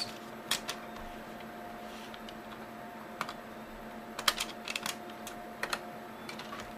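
Scattered sharp plastic clicks and taps of fingers handling the open underside of a Gateway NV55C laptop at its memory slots, with a cluster of quick clicks a little after the middle, over a faint steady hum.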